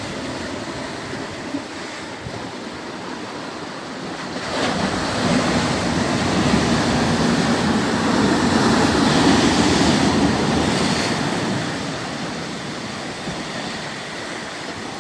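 Sea waves washing onto the shore, with wind buffeting the microphone; one wave surges in about four and a half seconds in, grows louder through the middle and eases off a few seconds before the end.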